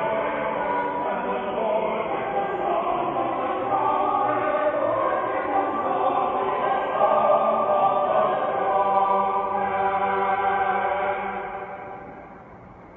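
Church choir singing an English Baroque anthem in sustained chords; the sound dies away near the end.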